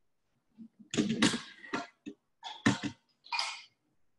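Cookware being handled while a pan of cooking spinach is checked: a string of short clatters and scrapes, with the loudest knocks about a second in and again near the middle.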